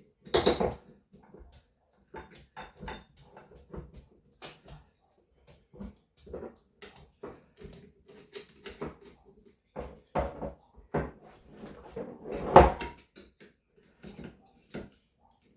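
Irregular clicks and clanks of a wrench and metal parts being handled while a shock absorber is tightened down, with a louder knock about twelve seconds in.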